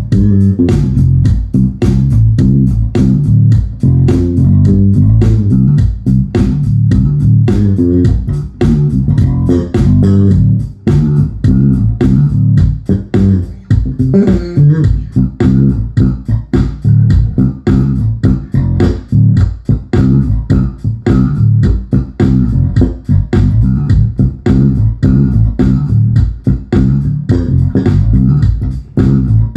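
Kiesel five-string electric bass guitar played solo fingerstyle: a busy, fast line of plucked notes with sharp attacks and a deep, full low end.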